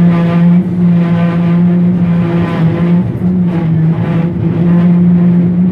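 Electric tram running, heard from inside its wooden saloon: a steady motor whine with a row of higher overtones over a rumble, shifting a little in pitch and breaking briefly a few times.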